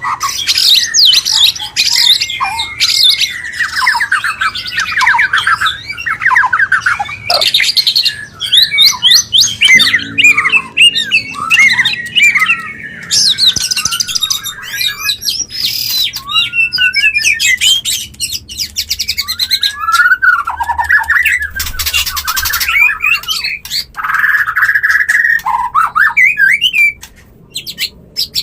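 White-rumped shama (murai batu) breeding calls: a fast, varied stream of rising and falling whistles and rapid trills broken by harsh chattering calls. This is the song of shamas in breeding condition, used to bring a kept bird into breeding mood.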